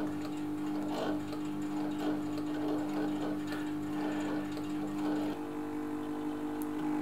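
Elna Air Electronic TSP sewing machine running at its slowest speed with the foot controller floored and the speed lever at its lowest setting: a steady motor hum with a slow tick from each stitch. A second, higher hum joins about five seconds in.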